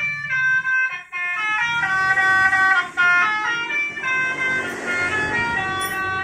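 Basuri musical horn playing a tune: a quick run of short horn notes, each held briefly before stepping to another pitch.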